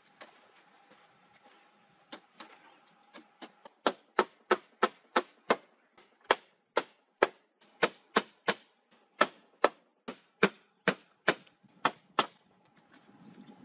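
Hammer striking weathered wooden planks: a few scattered taps, then a steady run of sharp blows about three a second from about four seconds in, stopping shortly before the end.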